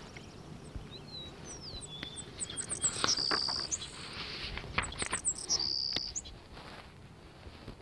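Birds chirping: a scatter of short, high rising and falling chirps, with a few brief steady high trilled notes in the middle.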